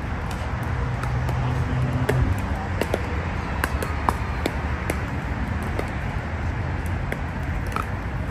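Pickleball rally: the sharp pops of paddles hitting a plastic ball and the ball bouncing on the hard court, every half second or so, over a steady hum of traffic.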